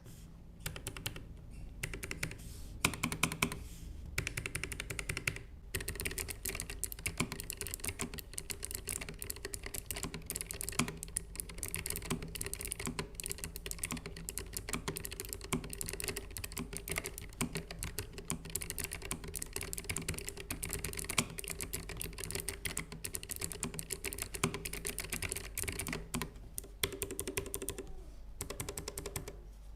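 Typing on a Keychron K3 Pro low-profile mechanical keyboard fitted with clicky Gateron Blue switches: a fast, continuous clatter of noisy key clicks with a few short pauses, the longest near the end.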